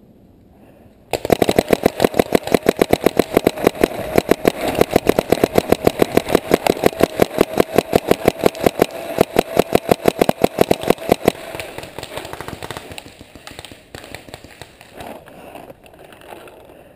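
Paintball marker firing rapidly: a long even stream of sharp pops, about eight a second, over a steady whine, stopping near the end. Quieter rustling follows.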